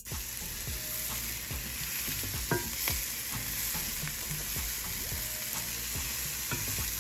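Food sizzling in a hot frying pan, a steady hiss, with a few clicks and scrapes of a utensil stirring it.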